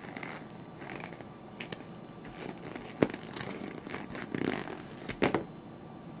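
A rubber BlackBerry replica being handled and squashed against a tabletop: scattered rubbing and scraping noises, a sharp knock about three seconds in, and two louder scrunching bursts near the end.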